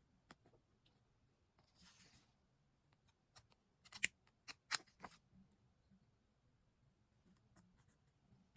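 Quiet desk stationery handling: a short paper rustle, then about five sharp snips and clicks in quick succession around the middle.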